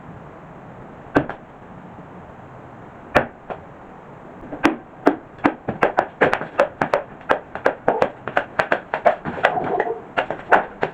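A Bowie knife chopping into a pumpkin: two single chops, then from about halfway a fast run of chops, about two to three a second.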